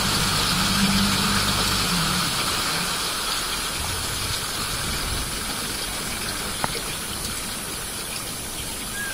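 Motorboat engine running, then dropping away about two to three seconds in as the boat slows, leaving a steady rush and splash of water along the hull. A single sharp click about six and a half seconds in.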